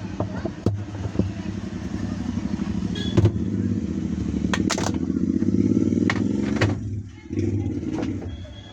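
Whirlpool semi-automatic washing machine's wash motor and pulsator running with a low hum and a fast, dense rattle, with sharp clicks and knocks over it; it drops off briefly about seven seconds in and starts again. The technician traces the noise to coins jammed under the pulsator, which pushed it up out of the gearbox.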